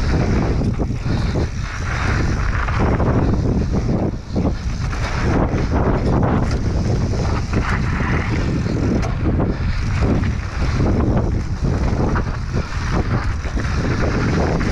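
Wind buffeting an action camera's microphone during a fast mountain-bike descent, with the tyres rumbling over the dirt trail and the bike rattling over bumps in frequent short knocks.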